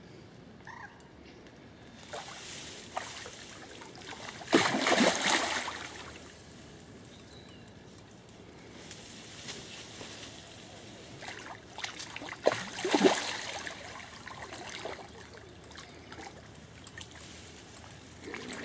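Water splashing close to the bank as a hooked carp is played in the shallow margin, with two big splashes about five and thirteen seconds in and smaller sloshing between.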